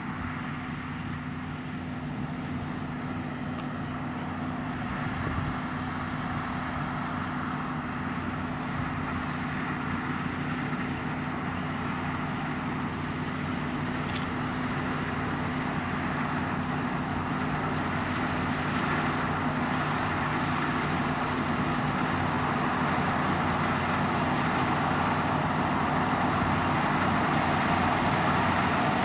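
Claas combine harvester running as it cuts rapeseed: a steady engine and machinery drone with a low hum, growing gradually louder as the machine comes closer.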